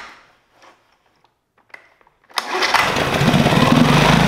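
Yamaha 9.9 hp four-stroke outboard engine catching on a starter-rope pull about two seconds in and running with a steady low pulse. It fires only on fuel poured directly into the cylinders, which the owner takes as a sign that something is probably wrong with the carburetor.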